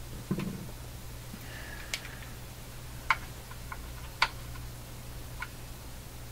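A handful of sharp, irregular clicks and light knocks, with a duller knock about half a second in, from hands handling the tipped-up Fisher System 8700 amplifier and working cleaner into its controls. They sit over a steady low hum.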